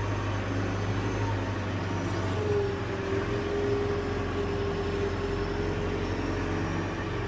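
Backhoe's diesel engine running steadily, with a steady whine joining about two and a half seconds in.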